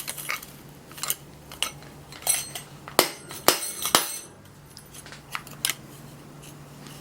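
Metal compressor parts being handled and knocked together: scattered clicks and clinks, with a cluster of loud ringing metallic clanks about three to four seconds in, over a steady low hum.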